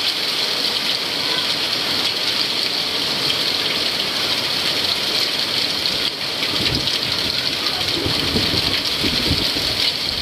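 Hailstorm with heavy rain: a loud, steady din of hailstones and rain pounding down, with some low rumbling in the second half.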